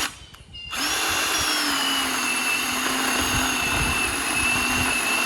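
SORAKO 20-volt cordless electric chainsaw running: a short burst of motor whine, a brief pause, then a steady run whose pitch sags over a second or two before it cuts off sharply at the end.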